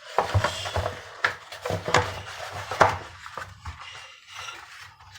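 Clatter of kitchen items being handled: a few sharp knocks and clinks with rustling between, the loudest about two and three seconds in.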